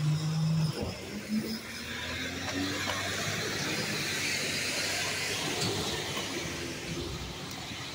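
Recycling truck's engine pulling away, its note climbing in pitch over the first few seconds as it accelerates, over a steady hiss.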